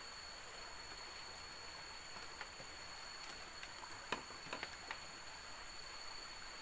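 A few light clicks and knocks of dry bamboo slats and poles being pressed and shifted, a small cluster of them about four seconds in, over a faint steady hiss.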